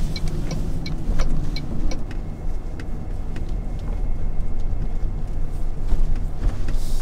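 Car interior noise while driving slowly: a steady low road and engine rumble, with a light regular ticking in about the first second.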